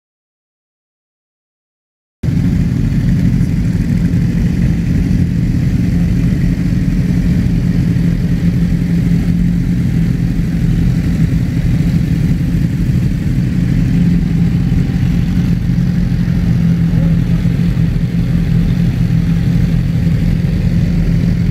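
Suzuki GSX-R1000R's inline-four engine with an Akrapovic exhaust idling steadily, after about two seconds of silence.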